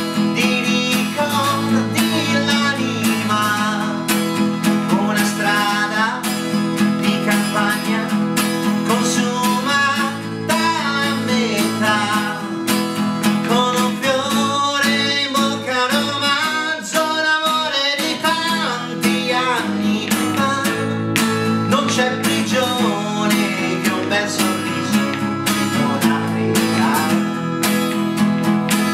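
Steel-string acoustic guitar strummed steadily, with a man singing over it.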